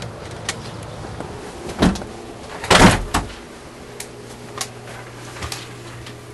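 Scattered light footsteps and knocks of someone walking into an office, with one louder thud and rush of noise about three seconds in from the entrance door swinging shut. A faint steady low hum sets in just after it.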